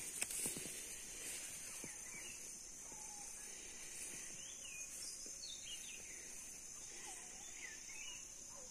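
Rural outdoor ambience: a steady high-pitched insect drone with short chirping bird calls scattered through it, and a brief knock right at the start.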